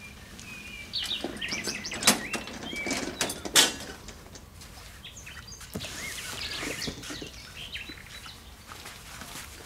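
Small birds chirping on and off. Between about one and four seconds in come several sharp knocks and rustles, the loudest about two seconds in and again about three and a half seconds in.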